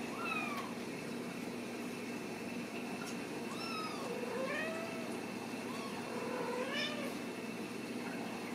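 Ragdoll cats meowing: about five short meows that rise and fall in pitch, spread over several seconds, over a steady background hum.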